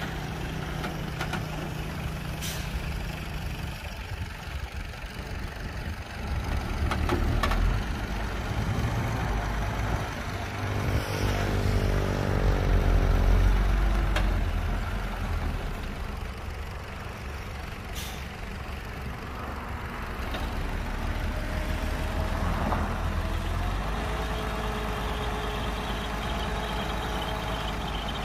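Heavy diesel dump truck engine running, surging louder twice in the first half, with a few short sharp hisses of air brakes. Steady higher-pitched tones are heard over the engine in the last few seconds.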